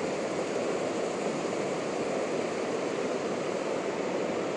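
Steady rushing of river water flowing over rocks, an even sound with no breaks.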